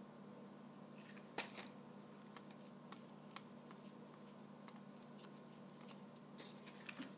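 Faint handling noises from hands working a cut-out ghost and a hot glue gun: a few light clicks and taps, the loudest about a second and a half in, over a steady low hum.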